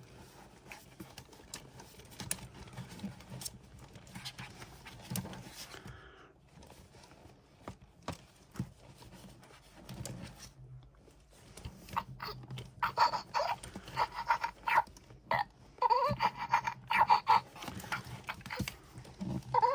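FurReal Friends Snifflin Sawyer interactive toy polar bear cub making its electronic cub noises. Faint clicks and a low hum at first, then from about two-thirds of the way in a run of loud, short cub calls, some rising in pitch.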